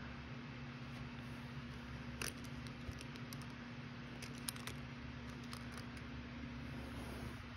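Light clicks and taps of fingers handling a rhinestone-studded gold cuff, scattered between about two and five seconds in, the sharpest near four and a half seconds, over a steady low hum.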